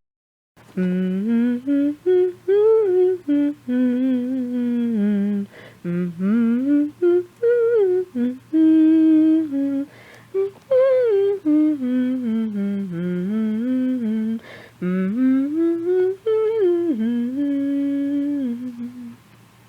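A woman humming a wandering tune, in short phrases broken by brief pauses, trailing off near the end.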